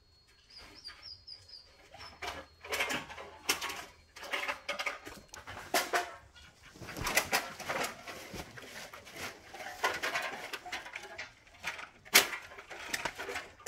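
Small dog chewing and crushing an aluminium drink can: irregular crinkling and crunching of the thin metal, in short bursts with pauses.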